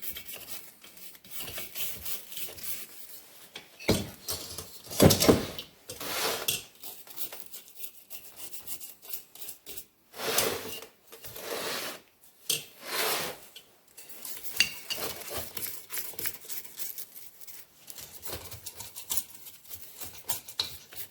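A small brush scrubbing a gasoline-wetted air-cooled VW engine part, in irregular scratchy strokes. A few louder bursts of scraping and handling come about four to six seconds in and again around ten and thirteen seconds.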